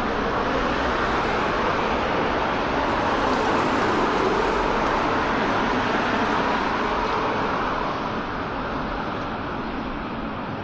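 City road traffic noise: a steady rush of cars and tyres that grows louder around the middle, as a vehicle passes close, and eases off near the end.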